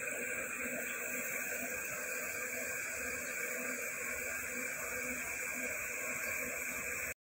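Steady, even background hiss with no distinct events; it cuts out abruptly near the end.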